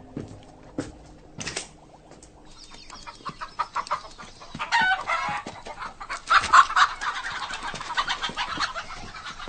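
Chickens clucking in a busy run of short calls from about two and a half seconds in, loudest in the middle, after a couple of soft knocks at the start.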